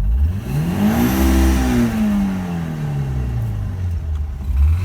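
Rebuilt Lada Priora four-cylinder engine revving: the pitch climbs quickly for about a second, then falls off gradually over the next three seconds and starts climbing again near the end. The owner says the engine picks up revs very fast but has a piston knock.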